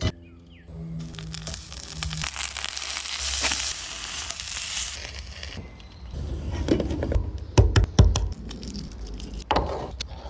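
Kitchen cooking sounds: a hiss of food sizzling in a hot pan through the middle, then a few sharp knocks and clatter of utensils.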